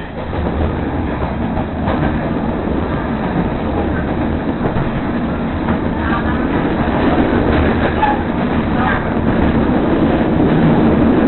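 Running noise heard from inside a Budd-built CTA 2200-series rapid-transit car travelling at speed: a steady rumble of wheels on rail with some clickety-clack. It gets a little louder over the second half.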